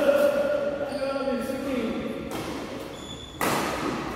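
Badminton play in an echoing hall: racket hits on the shuttlecock and thuds of footwork, with voices calling across the courts. The loudest is a sharp smack about three and a half seconds in.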